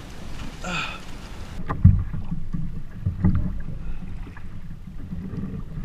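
Water sloshing and knocking against a plastic kayak hull, heard as low, muffled thumps, the loudest about two seconds in and another about three seconds in.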